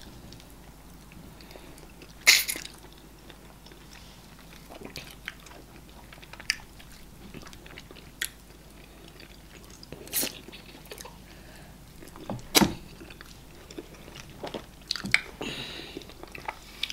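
Close-miked chewing and eating of eba with okra soup and assorted meat by hand, with scattered sharp mouth smacks and clicks; the loudest come a little after two seconds, around ten seconds and around twelve and a half seconds.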